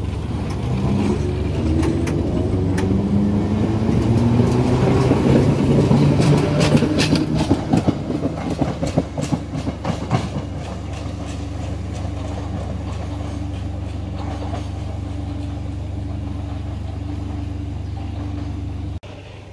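Ex-London Underground 1938 tube stock electric train (Class 483) pulling away: its motors whine, rising in pitch as it accelerates, with a run of clicking as the wheels cross rail joints. The sound then fades to a steadier, quieter noise as it draws away.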